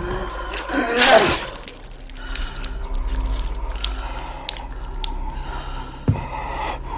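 A person's sharp, breathy gasp about a second in, over low sustained drone tones. A few faint ticks follow, and a short thump comes near the end.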